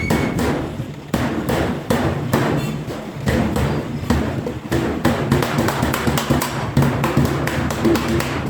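Hammer blows on sheet steel: a quick, continuing run of sharp strikes.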